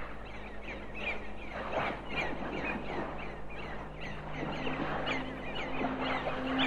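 Seagull calls: many short, falling cries in quick succession over a steady hiss, with a low held tone underneath and a second low note coming in about halfway through.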